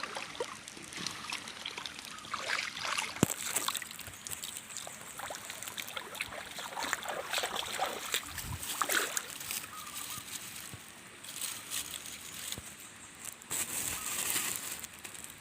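Shallow ditch water sloshing and trickling in irregular small splashes as someone wades and rummages in it hunting shrimp for bait, with a single sharp knock about three seconds in.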